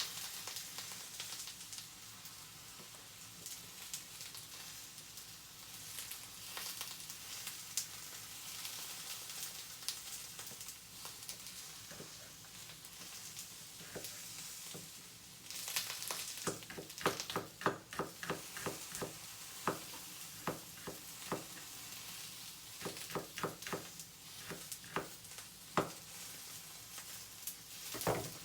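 Eggplant and garlic frying in oil in a pan, a steady sizzle. From about halfway through, a run of sharp clicks and taps comes from a utensil stirring and turning the food against the pan.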